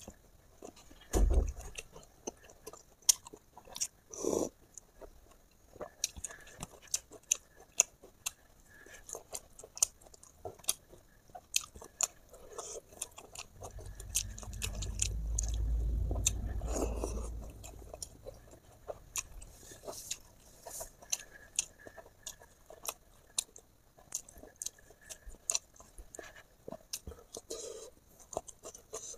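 A person eating close to the microphone: chewing and biting with many small sharp mouth clicks and smacks. There are two louder knocks about one and four seconds in, and a low rumble for a few seconds around the middle.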